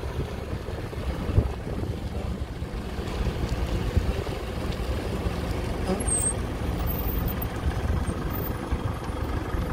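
Mitsubishi Pajero Full 4x4 driving along, a steady engine and road rumble, with one sharp knock about a second and a half in.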